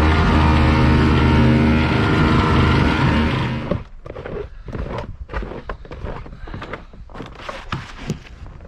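Small snowblower engine running steadily, then cutting off suddenly about three and a half seconds in. After that come irregular crunches and knocks.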